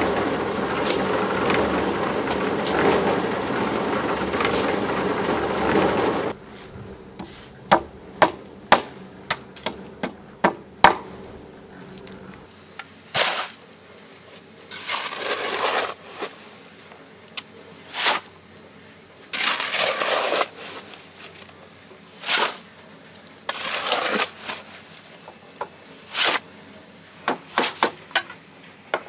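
Building-site work: a loud, steady rattling noise that cuts off suddenly about six seconds in, then a run of sharp metallic clinks and taps, then short scraping strokes repeated about every two seconds.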